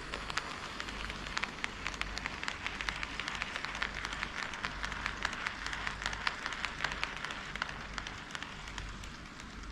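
HO-scale model train running on KATO Unitrack: a steady rolling rattle of small wheels on the rails, thick with rapid irregular clicks from the rail joints, with a low motor hum underneath. It grows a little fainter near the end.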